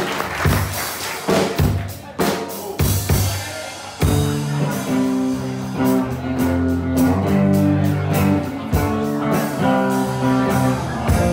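Live band with drum kit, bass guitar and electric guitar playing an instrumental opening. Drum hits lead for the first few seconds, then the guitars and bass come in together with sustained chords about four seconds in, over a steady drum beat.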